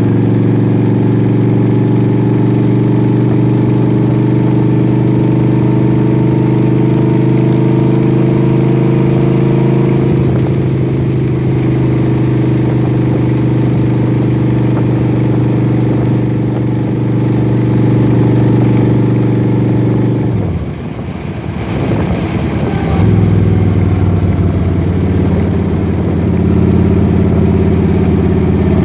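Vehicle engine and road noise heard from inside while driving: a steady engine drone. About 20 seconds in the engine note drops and the sound dips, then it climbs again as the engine picks back up.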